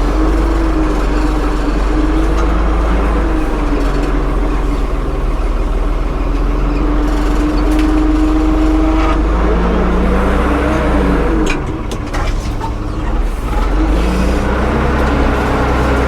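A motor running steadily with a deep hum and a pitch that wavers up and down, dropping off briefly with a few sharp clicks about twelve seconds in.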